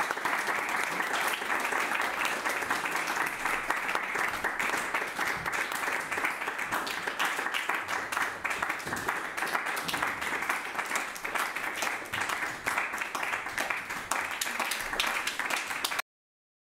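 Audience applauding steadily, a dense patter of many hands clapping that cuts off suddenly near the end.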